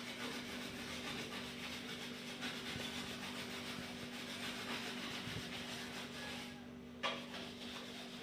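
Continuous rubbing and scrubbing as a kitchen surface is cleaned by hand, with one sharp knock about seven seconds in. A steady low hum runs underneath.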